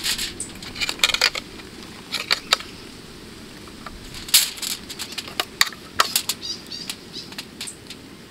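Aluminium foil crinkling and rustling under hands as a marinated mackerel is laid on it, with irregular sharp crackles.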